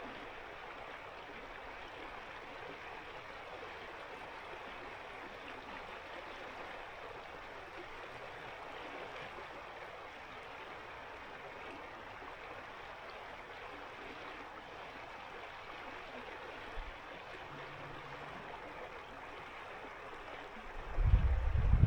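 Steady rushing flow of a winter mountain river of ice-cold water. Near the end a sudden loud low rumble cuts in over it.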